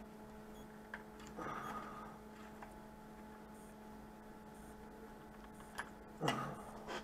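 Steady low electrical hum, with a few small clicks and brief handling rustles about a second and a half in and again near the end.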